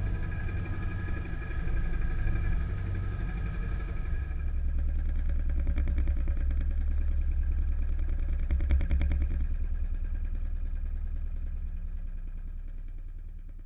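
Sailboat's inboard engine running steadily under way, a low rumble with an even pulse, with wind and water hiss dropping away about four seconds in as the boat enters sheltered water. The sound fades out near the end.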